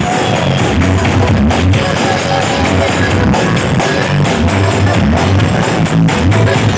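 Loud music with guitar and drums over a heavy, pulsing deep bass.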